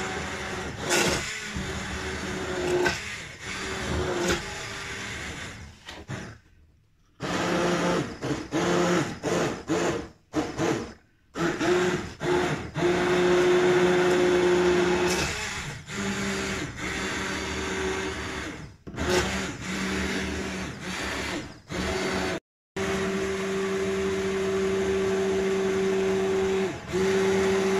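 Hand-held immersion blender with an all-metal shaft puréeing hot vegetable soup in a steel pot: a steady motor hum that stops and starts several times, with short breaks between runs.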